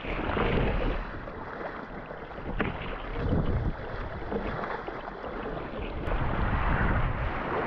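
Kayak paddle strokes splashing through open sea water, with wind rushing over the microphone; the splashing swells and fades irregularly.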